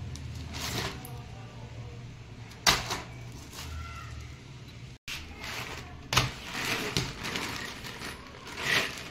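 Plastic wrap crinkling, with knocks, as plastic-wrapped coils of drip-irrigation tubing and a bag of plastic fittings are picked up and handled. The loudest is a sharp crackle about two and a half seconds in. A low steady hum runs under the first half and stops about halfway.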